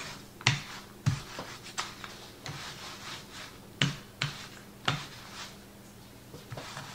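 Wooden rolling pin rolling over sugar-coated puff pastry on a wooden cutting board: gritty rubbing of sugar crystals, broken by about ten light, irregular knocks as the pin goes back and forth.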